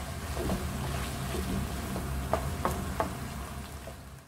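Minced chicken cooking in its own released water in a nonstick frying pan, with a wooden spatula scraping and knocking against the pan several times over a steady low hum. The sound cuts off abruptly near the end.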